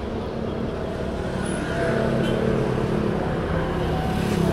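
Motorcycle engine running with a steady low hum; it gets a little louder about two seconds in.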